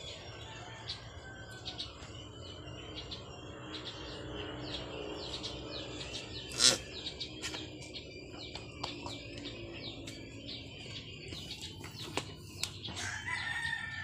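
Farmyard birds calling: a rooster crowing and chickens clucking, with small birds chirping throughout. One sharp knock about six and a half seconds in.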